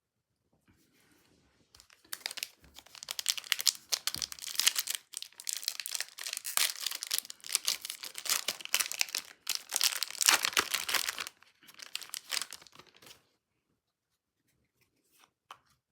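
A foil trading-card pack wrapper being torn open and crinkled, a dense crackling that starts about two seconds in and stops about two seconds before the end.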